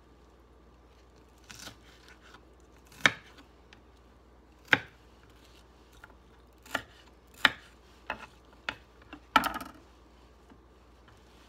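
Kitchen knife chopping red onion on a wooden cutting board: single sharp knocks, a second or more apart at first, then coming quicker with a short flurry near the end.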